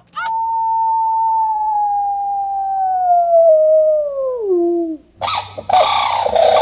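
A dog howling: one long call that slowly falls in pitch, then drops sharply and breaks off about five seconds in. Loud fowl calling, turkeys gobbling, starts right after.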